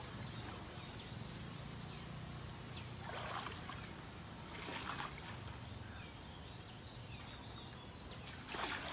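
River water splashing as a man scrubs and splashes an elephant standing in it. Louder splashes come about three seconds in, again around five seconds, and near the end.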